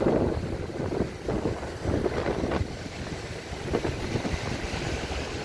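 Wind buffeting the microphone in uneven gusts, a low rumbling noise that swells and drops.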